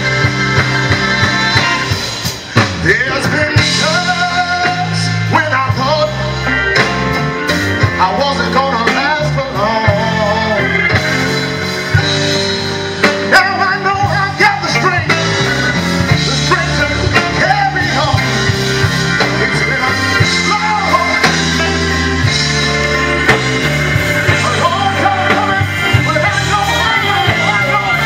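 Live blues band playing through the stage PA, with a singer and guitar over a stepping bass line.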